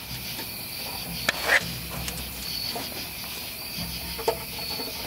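High-pitched insect trilling in short stretches over a faint low hum, with one short knock about a second and a half in.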